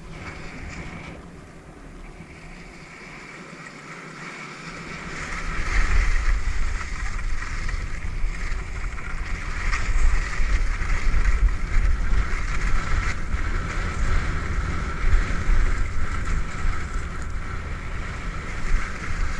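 Wind buffeting the microphone of a skier descending at speed, over the hiss and scrape of skis on hard-packed snow. The wind rumble grows much louder about five seconds in as speed picks up.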